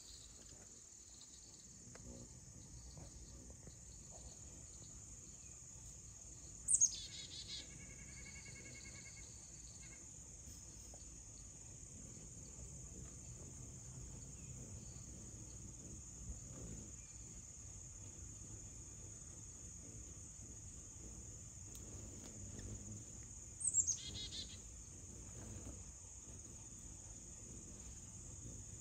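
Steady high-pitched insect chorus outdoors, with a bird's sharp falling call twice, about 7 s and 24 s in; the first call runs into a quick chattering trill.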